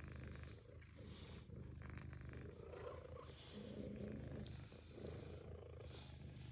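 A domestic cat purring close up, a low continuous rumble.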